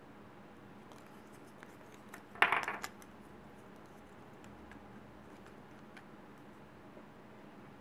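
3D-printed plastic parts being handled and fitted together: scattered light clicks, with a short clatter of hard plastic about two and a half seconds in.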